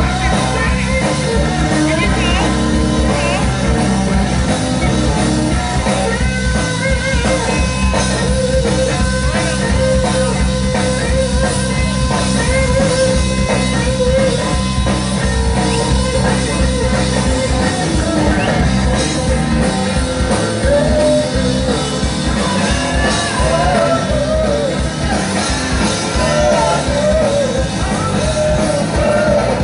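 Live rock band playing through a stage PA, with a voice singing over guitar, bass and drums.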